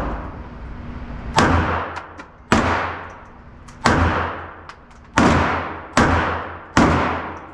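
Gunshots fired one at a time, about seven in a row roughly a second apart, each sharp crack followed by a ringing echo that dies away.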